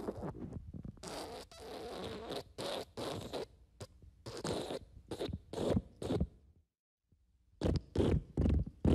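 Fart sound effects: a run of short, raspy, spluttering bursts. It cuts to silence for about a second, then a new run of louder bursts begins.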